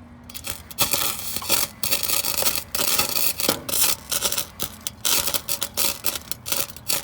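Stick-welding arc striking about a quarter-second in, then crackling and sputtering in uneven spurts with brief breaks as the electrode burns.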